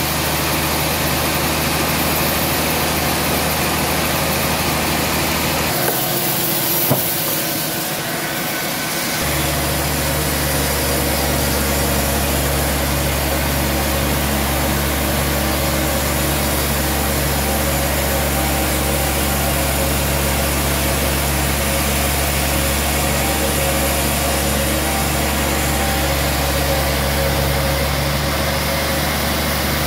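Band sawmill machinery running with a steady engine-like hum. About six seconds in the low hum drops away for roughly three seconds, with a single short click, then comes back and holds steady.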